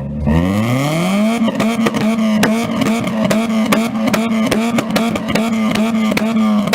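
A high-performance car engine revving up over about a second and a half, then held at high revs on one steady note for about five seconds, with rapid sharp cracks through it.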